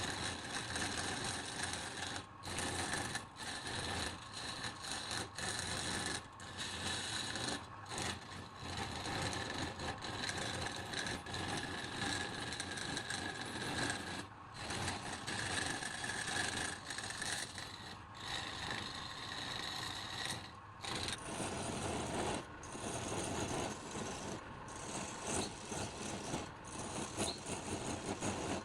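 Wood being turned on a lathe: a turning tool cutting the spinning workpiece with a steady scraping hiss, broken by brief gaps every few seconds as the tool comes off the wood.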